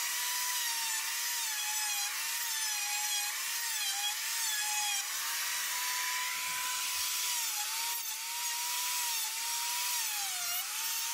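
Small-bar chainsaw cutting branch tiers into a small wooden carving. It runs at a steady high whine that dips briefly and recovers each time it bites into the wood, with a longer steady stretch in the middle and a deeper dip near the end.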